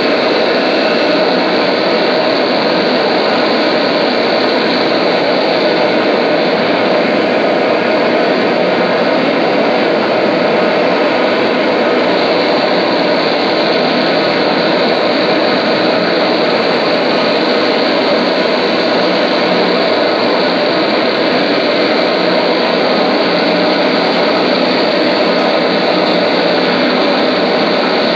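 Loud, steady wall of distorted drone noise from an amplified electric guitar, unchanging, with no beat or melody.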